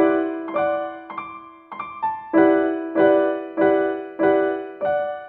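Background piano music: a note or chord struck about every half second, each ringing out and fading before the next.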